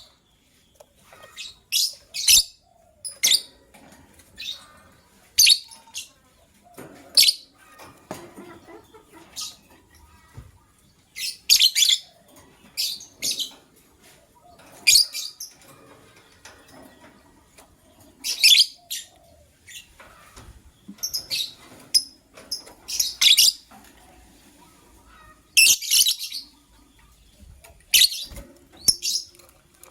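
Lovebirds chirping: short, sharp, high-pitched calls in irregular bursts, one every second or two, some in quick clusters.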